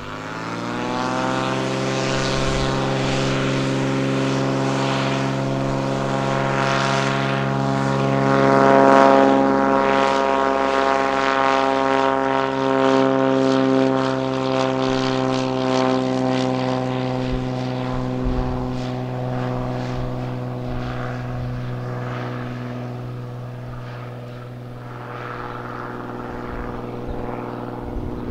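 Beechcraft A36 Bonanza's six-cylinder piston engine and propeller at takeoff power. The pitch rises quickly in the first second or two as power comes up, then holds steady. It is loudest about nine seconds in and then slowly fades.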